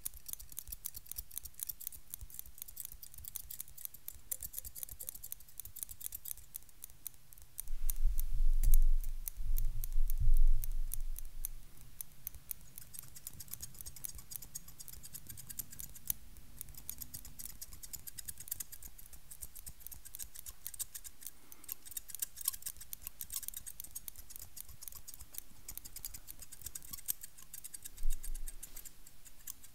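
Barber's scissors and thinning shears snipped rapidly and without a break close to the microphone: a dense run of crisp metallic snips. A louder low thudding rumble comes from about eight to eleven seconds in, and a brief one near the end.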